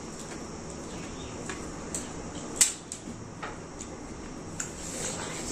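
Scattered small wet clicks and smacks of juicy watermelon flesh being torn apart by hand and eaten, the sharpest about two and a half seconds in, over a steady faint hiss.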